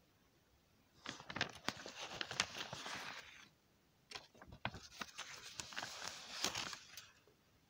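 Paper pages of a hand-drawn picture book being turned, twice: two fairly faint stretches of rustling and crinkling with many small clicks, each lasting two to three seconds.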